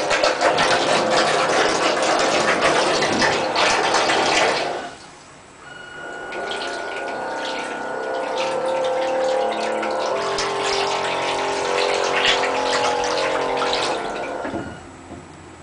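A small bilge pump in a homemade RC submarine runs and churns the bathtub water with a loud rushing sound. It cuts out about five seconds in and starts again a second later with a steady motor whine over the water, then stops just before the end.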